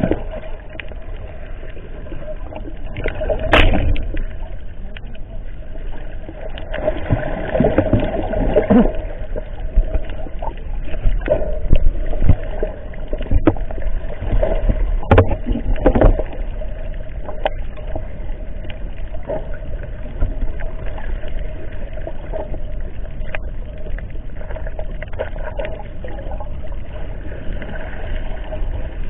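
Muffled underwater sound picked up by a camera held under the sea: a steady hum and low rumble of water, with bubbling and scattered knocks and splashes.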